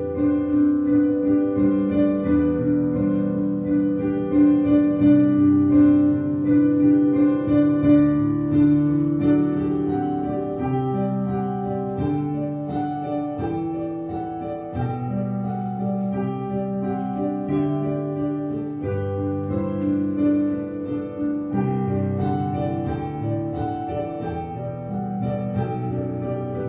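Slow instrumental keyboard music: sustained chords that change every second or two over a long held note.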